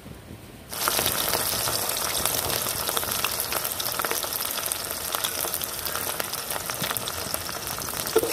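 Chopped onion and green capsicum dropped into hot oil in a wok, sizzling suddenly about a second in and then frying steadily.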